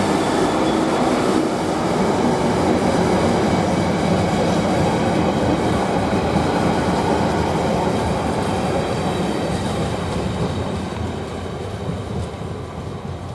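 Freight train hauled by a Class 66 diesel locomotive passing close by, its wagon wheels running over the rails in a loud, steady noise that fades over the last few seconds as the train draws away.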